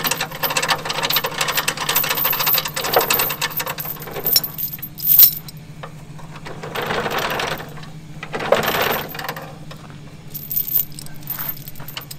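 Steel tow chains rattling and clinking as they are handled and hooked around a box truck's rear bumper. There is busy clinking for the first few seconds, then separate bursts of chain rattle.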